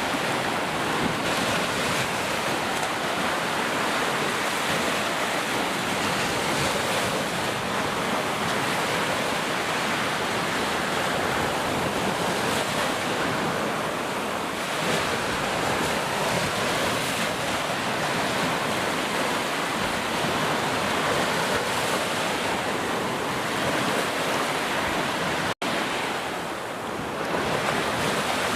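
Heavy rain falling steadily, a dense even hiss. About 25 seconds in it cuts out for a split second, then carries on.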